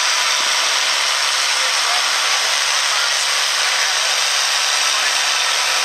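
Diesel engine of a farm stock pulling tractor running hard under full load as it drags the weight-transfer sled down the track: a loud, steady noise with no letup.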